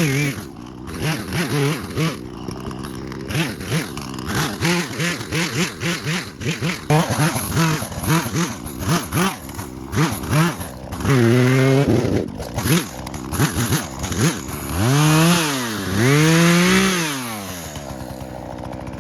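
Old gas chainsaw cutting up wood. Its engine is blipped in many quick bursts of throttle, then revved up and let down three times in longer pulls, once about two-thirds through and twice near the end, before settling back to a lower run.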